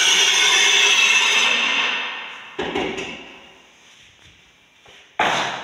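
A corded power tool runs with a steady whirr, then winds down and stops about two seconds in. Two sharp knocks follow, about two and a half seconds apart, the second the loudest.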